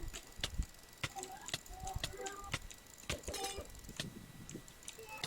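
A series of sharp, irregular clicks, a few per second, with faint murmuring between them.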